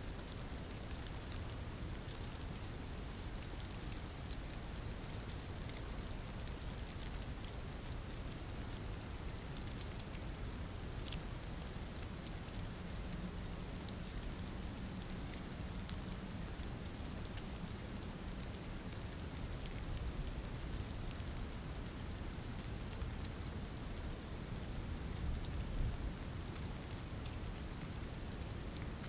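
Steady rain falling, with many fine drop ticks over a low rumble that swells briefly near the end.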